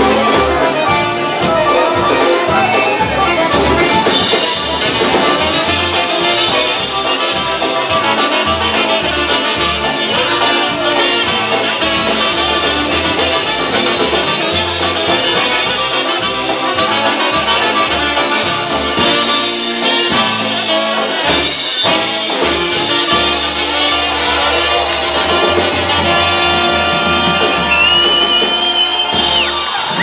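Live polka band playing an instrumental passage, trumpet lead over saxophones, accordion and bass. In the last several seconds the band holds steady notes, then stops just before the end.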